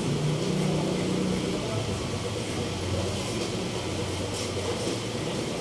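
Electric hair clipper buzzing steadily during a haircut, its hum dropping lower about two seconds in, over a steady background hiss.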